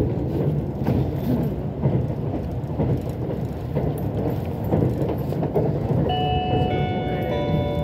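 Limited express train running at speed, heard from inside a passenger car: a steady low rumble with rail-joint clacks about once a second. About six seconds in, the onboard chime melody begins, the signal that an automated station announcement is coming.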